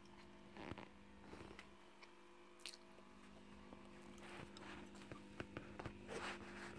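Near silence: a faint steady hum with scattered soft clicks and rustles.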